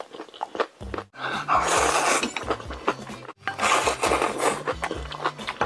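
Close-miked eating: crunchy bites and chewing, with two louder crunching stretches, over background music with a repeating bass line.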